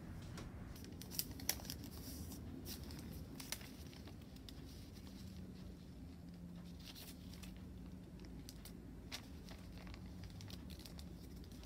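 Faint crinkling and rustling of thin tattoo stencil transfer paper as it is handled and pressed onto skin, in scattered short crackles. A faint steady low hum sets in about halfway through.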